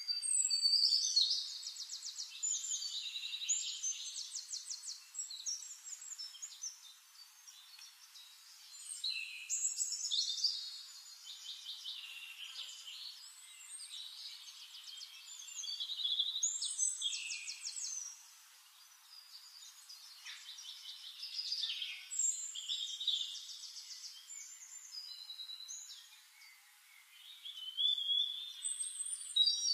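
A songbird singing high, rapid trilling phrases, a fresh burst of song every six to eight seconds, with quieter chirps in between.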